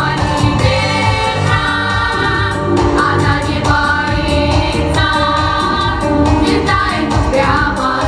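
Girls' vocal group singing a song together into handheld microphones, over amplified accompaniment with a steady beat.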